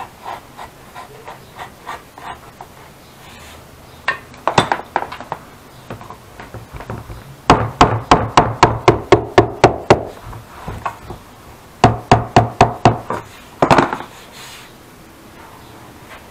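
A small hammer tapping quickly on the leather-covered rim of a saddle, setting down the reinforcement, in runs of rapid strikes, about six a second; the longest run comes about halfway through and a shorter one about three quarters of the way in.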